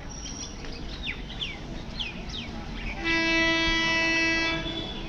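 Birds chirping briefly, then about three seconds in an electric multiple unit train's horn sounds once, a single steady note held for about a second and a half.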